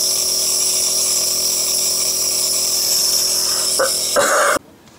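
Compressor nebulizer running: a steady motor hum with a strong airy hiss, with a brief louder change just before it cuts off suddenly near the end.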